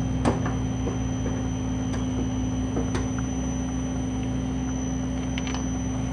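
Metal lathe running steadily with the chuck spinning, giving an even motor and drive hum, with a few faint clicks scattered through.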